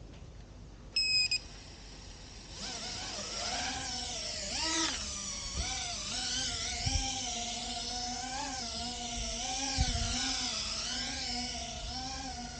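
GEPRC Phantom FPV quadcopter's brushless motors and propellers whining in flight, the pitch wavering up and down with the throttle. A short high electronic beep sounds about a second in, before the motors spin up.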